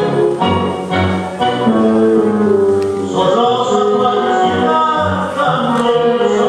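Recorded tango music played by a DJ over a dance hall's sound system: a steady pulsing bass beat, with a brighter held melody coming in about halfway.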